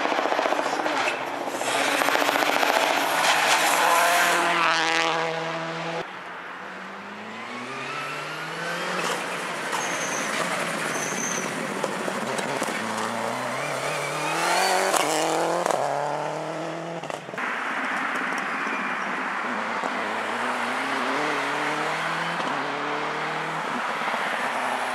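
Subaru Impreza WRC rally cars' turbocharged flat-four engines at full throttle. One car passes loudly in the first few seconds. Then cars accelerate hard up through the gears, the revs climbing and dropping sharply at each shift, several times over.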